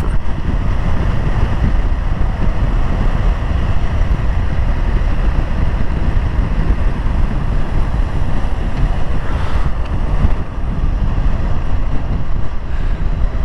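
Steady wind rush buffeting the microphone of a sportbike riding at speed through canyon curves.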